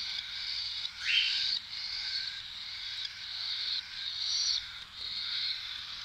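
Cockatiels calling: a string of harsh, buzzy chirps about half a second each, with one louder call rising in pitch about a second in.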